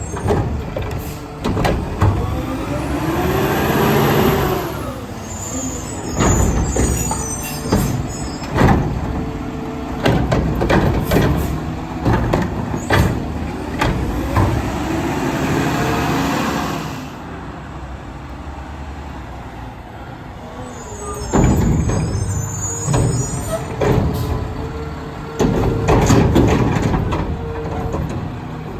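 Mack LR garbage truck with a McNeilus Meridian front-loader body and Curotto Can arm working: the engine revs up and back down twice, with a rising then falling whine, among repeated metallic clanks and bangs and air-brake hisses. It settles briefly about two-thirds of the way through before the clanking picks up again.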